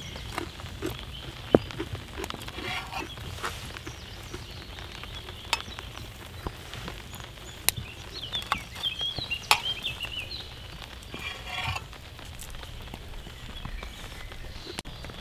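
A metal knife clicking and scraping against a steel frying pan in short irregular strokes, a few sharp clinks standing out, over a steady background hiss of rain.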